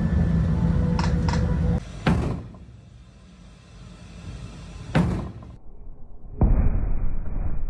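A naval deck gun fires three single rounds, each a sudden bang with a trailing rumble. The first comes about two seconds in, the second about three seconds later, and the third, heavier boom a second and a half after that, which rumbles on. A steady low rumble fills the first two seconds before the first shot.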